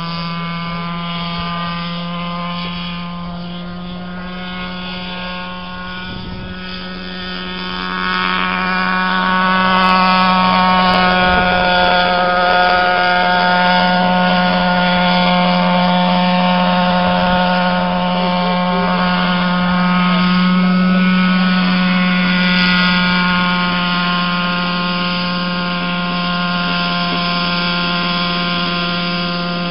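Radio-controlled scale Huey (UH-1) model helicopter in flight: a steady high-pitched whine from its motor and rotor with a row of even overtones. It grows louder about eight seconds in as the model flies close, and eases a little near the end as it comes down towards the landing pad.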